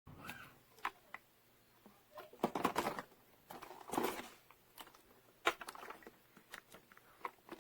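Scattered clicks, taps and short rustles at an uneven pace, like objects being handled and moved about in a small room.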